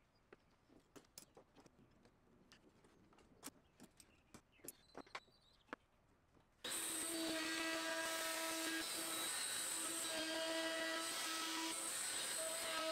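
Faint clicks and knocks of jig inserts and clamps being set on a plywood routing jig. About two-thirds of the way in, a DeWalt trim router starts abruptly and runs with a steady high whine while cutting dados in a sapele divider; its tone drops out and returns every second or two.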